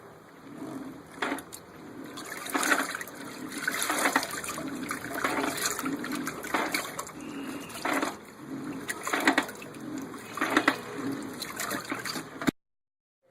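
Water sloshing and churning in the drum of a pedal-powered mini washing machine, surging in a regular rhythm about every second and a quarter. It cuts off abruptly near the end.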